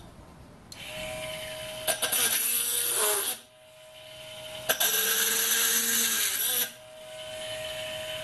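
Geared 220V 72W micro electric drill with a 3/16-inch bit drilling into hard steel plate in two bursts. Its motor whine drops in pitch while the bit bites and rises again when it runs free, and there is a sharp click as the second cut starts.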